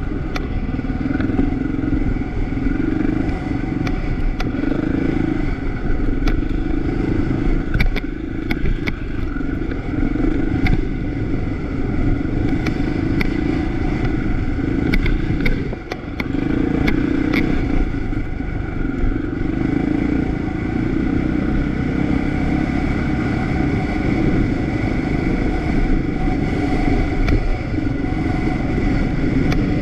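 Motorcycle engine running steadily while being ridden, with a brief drop in level a little over halfway through. Sharp clicks and rattles come in scattered clusters.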